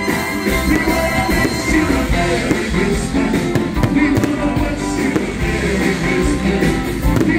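Music with singing plays loudly throughout, over a fireworks display, with a few sharp firework bangs heard beneath it.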